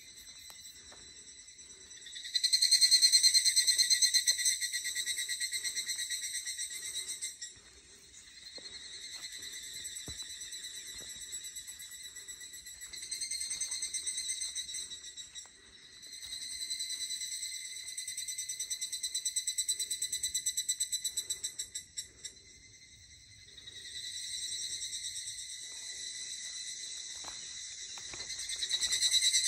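Cicadas calling: a high, rapidly pulsing buzz that swells and fades in bouts of several seconds, loudest a couple of seconds in.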